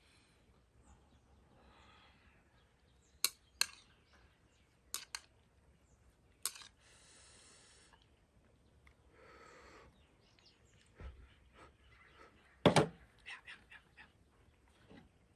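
Eating utensils clicking and knocking against a pot or bowl during a ramen meal: a handful of sharp, separate clicks, the loudest about two-thirds of the way through, with short soft noises between.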